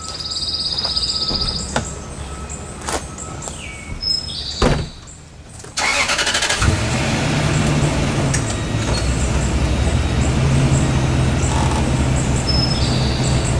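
Clunks and clicks of a pickup truck being got into, with a brief high electronic chime near the start. About six seconds in the truck's engine is started, catching at once, and settles into a steady idle.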